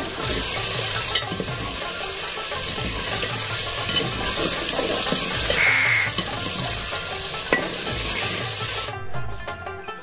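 Chicken pieces sizzling in hot ghee with onions, being stirred and turned with a steel ladle in a metal pot to brown the meat, with a few sharp clinks of the ladle on the pot. The sizzling cuts off about nine seconds in and music begins.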